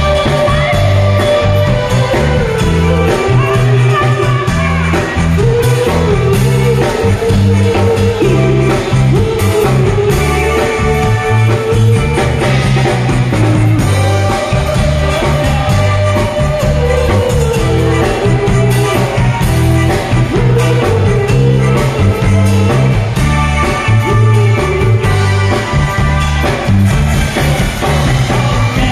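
Live band playing an upbeat rock-style song through PA speakers, with a pulsing bass guitar and drums under a held melody line.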